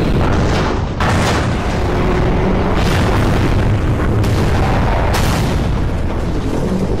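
Heavy booms and crashes from an animated battle between giant robots, over a continuous deep rumble, with sharper hits about a second in and again around three, four and five seconds.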